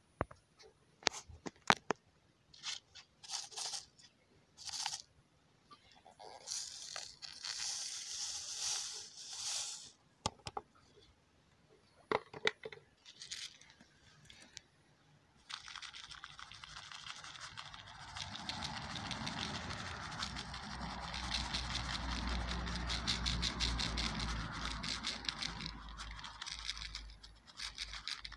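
Rusty flake smokeless powder grains rattling and scraping in a hand-held plastic sieve as it is shaken, a steady rustle from about 15 seconds in. Before that, scattered clicks and short rattles of the grains being handled.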